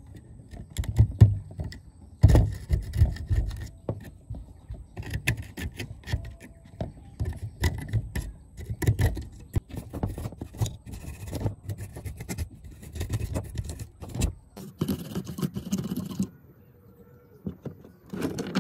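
A metal pick scraping and chipping crusted white corrosion off an old amplifier's circuit board, then a brush scrubbing the loosened crust away: irregular scratchy strokes with small knocks.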